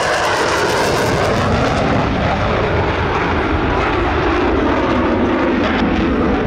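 F-16 Fighting Falcon jet engine roaring loud and steady overhead as the fighter pulls up steeply under high G.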